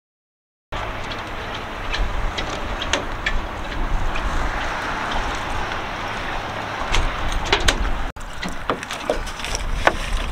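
Steady low outdoor rumble and hiss with scattered small clicks and wet sounds as two Belgian Malinois are given water and drink from a bowl.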